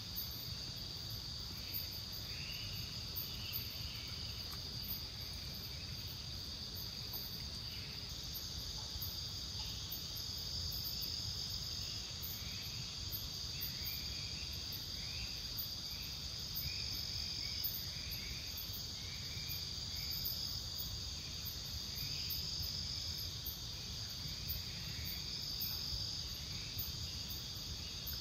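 Tropical forest ambience: insects trilling steadily in a high, continuous shrill chorus, with a string of short chirping calls repeating about once or twice a second over a low steady hiss.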